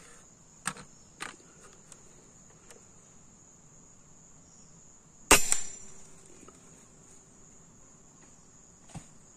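A single shot from a scoped 5.5 mm air rifle about five seconds in: one sharp crack with a short ring after it. A couple of lighter clicks come before it, and a steady high-pitched insect buzz runs underneath throughout.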